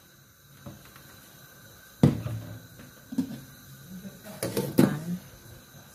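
Handling knocks and clinks of cookware on a gas hob, likely a glass lid going onto a stainless steel pot: a sharp knock about two seconds in, a smaller one a second later, then a quick run of clicks and knocks near the end.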